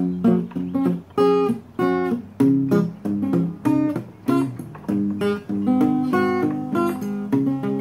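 Acoustic guitar strumming chords in a steady rhythm, with no singing.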